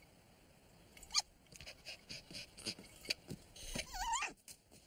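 Cartoon dog whimpering: a short, wavering high whine near the end. A few soft clicks and taps come before it.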